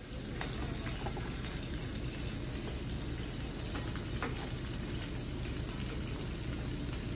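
Iguana meat frying in hot oil: a steady sizzle with an occasional sharp pop.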